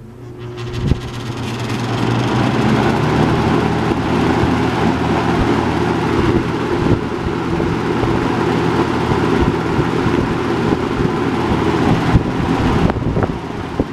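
Robeson model 2306 box fan switched on at high speed, spinning up over the first couple of seconds and then running steadily: a loud rush of air over a low, even motor hum.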